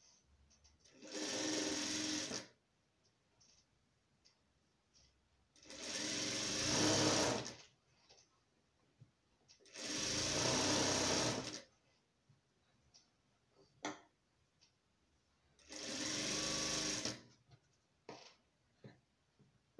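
Industrial single-needle lockstitch sewing machine stitching cotton bias binding along the edge of a patchwork rug. It runs four times, about a second and a half each, stopping in between while the fabric is repositioned, with small clicks of handling during the pauses.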